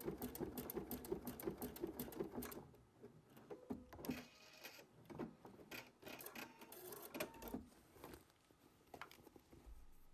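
Sewing machine stitching a small zigzag bar tack across heavy denim, running rapidly and stopping about two and a half seconds in. A few quieter short bursts and clicks follow.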